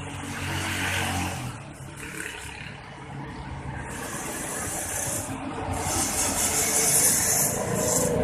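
Yamaha V75 motorcycle with a Yamaha Alfa engine running, its loudness building. A loud rushing hiss joins in over the second half.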